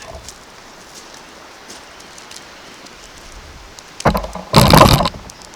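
Steady rush of a mountain trout stream. About four seconds in, a loud splashing burst lasting about a second, as a hooked trout thrashes at the surface.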